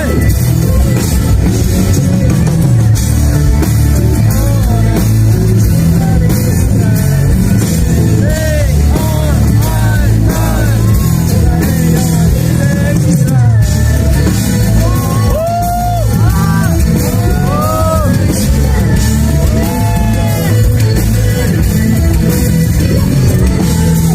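Loud live rock band music with a female lead vocal over heavy bass and drums.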